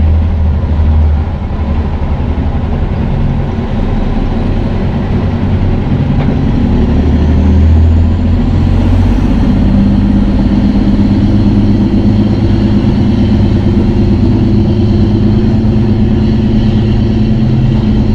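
Diesel engine of a semi truck running steadily, its pitch shifting a couple of times as the revs change.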